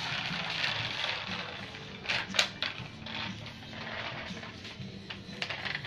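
Toddler's plastic toy push cart with a ball in its basket rattling and clattering as it is pushed across a tiled floor, with a few sharper clacks about two seconds in.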